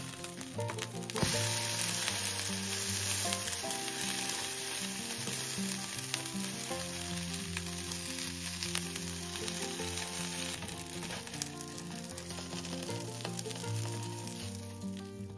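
Egg-coated bread slices topped with sausage rounds frying in a nonstick pan: a steady sizzle that gets louder about a second in and eases off slowly.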